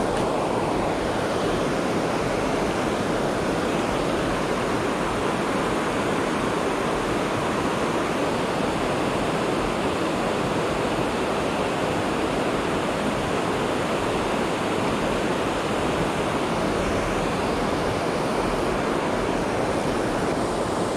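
River water pouring over a dam's falls, a steady unbroken rush of noise.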